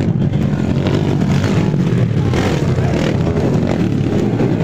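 Motocross dirt bike engines running and revving, loud and steady with brief surges.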